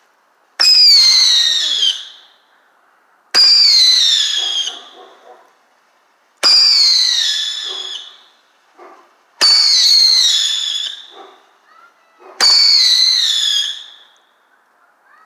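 A Phantom Fireworks 'Coast Guard' Roman candle firing its five shots about three seconds apart. Each shot is a sharp pop followed by a whistle that falls in pitch for about a second and a half.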